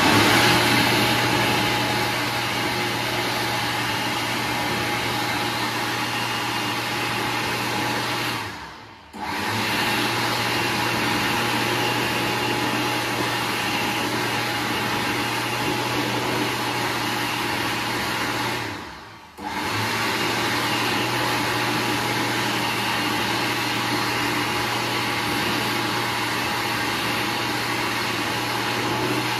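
Levante-branded automatic hot-air hand dryer running, a steady low hum under a rush of air. It starts at once, cuts out briefly twice (about nine and about nineteen seconds in) and restarts each time within half a second.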